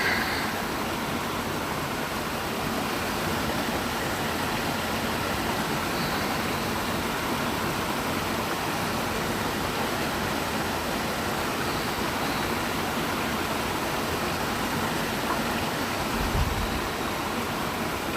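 Waterfall rushing, a steady, even noise of falling water. A brief low thump about sixteen seconds in.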